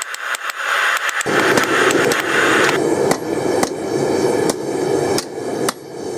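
Hand hammer striking a hot railroad spike on a small anvil, blows coming about twice a second. A steady rushing noise comes in underneath about a second in.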